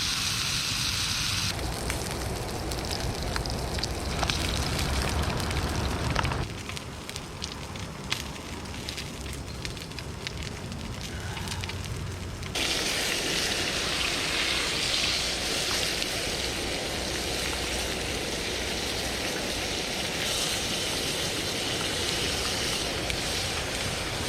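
A thick steak sizzling and crackling in a frying pan. The hiss changes abruptly in tone and loudness a few times.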